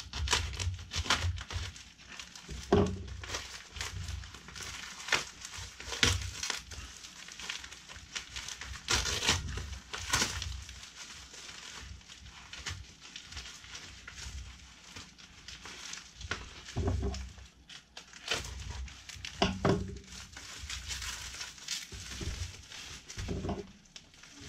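Plastic courier mailer being cut with a knife and torn off a cardboard box, with irregular crinkling and rustling of the plastic and a few dull knocks of the box being handled.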